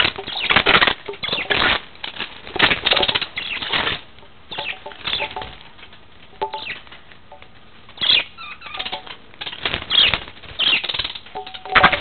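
Budgies in a wire cage flapping and scrabbling, heard as irregular bursts of scratchy rustling, with a few faint short chirps.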